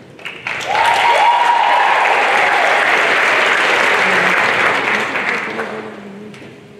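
Audience applauding and cheering at the end of an a cappella song, with one long, high cheer over the clapping for about two seconds. The applause dies away near the end.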